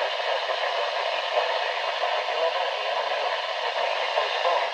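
Steady static hiss from a NOAA Weather Radio receiver, with no broadcast voice coming through.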